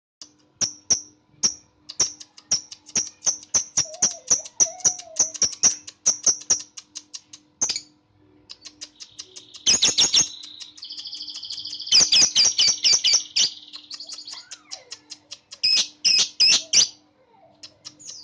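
Lovebird chirping in quick runs of short, sharp, high chirps, with a stretch of continuous buzzy trilling in the middle.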